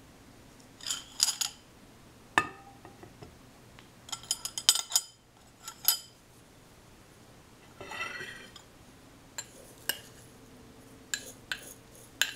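White plastic spoons and a spork clinking against a ceramic bowl and a tea tin: a string of separate light clicks and short clatters, with a brief rustle about eight seconds in.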